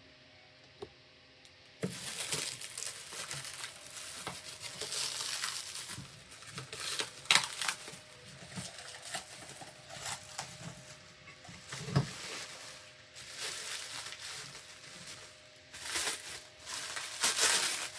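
Plastic wrap and packing tape crinkling and tearing as a boxed item is pulled out of its wrapping by hand, starting about two seconds in, with irregular crackles and a few louder rips.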